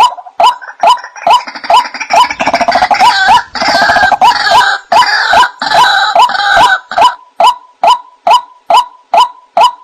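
White-breasted waterhen (ruak-ruak) calling: a steady series of short 'wak' notes about two a second, broken about a second in by several seconds of dense, rougher, overlapping calls before the even notes resume.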